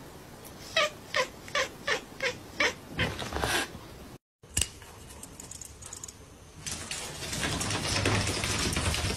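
A cat mewing in a quick run of about seven short, high calls. After a break, a steady rushing noise comes in about two-thirds of the way through.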